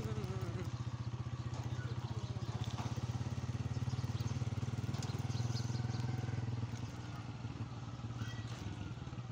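Small motorcycle engine running steadily while riding, a low, even rumble that gets quieter for the last few seconds.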